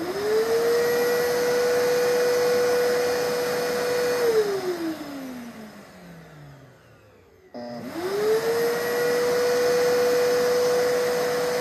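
Small vacuum cleaner running off a 24-volt battery inverter. It is switched on and its motor quickly spins up to a steady whine, runs for about four seconds, then is switched off and winds down in a falling whine. A few seconds later it is switched on again and spins back up to the same steady whine.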